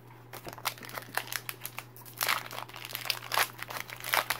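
Foil wrapper of a Pokémon TCG Rebel Clash booster pack crinkling as it is handled and torn open by hand, in irregular crackles that grow louder about two seconds in.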